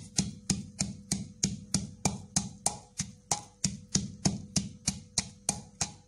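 Wooden pestle pounding fresh herbs, chillies and coriander seeds in a terracotta mortar, a steady rhythm of sharp thuds about three a second.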